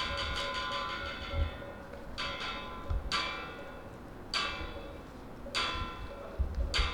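Korean Buddhist temple ritual percussion: a ringing metal instrument struck in a quick roll that dies away, then single ringing strikes a little over a second apart, with dull low thuds among them.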